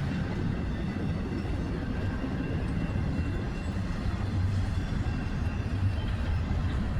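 Freight cars of a long train rolling past on the rails: a steady low rumble of wheels on track.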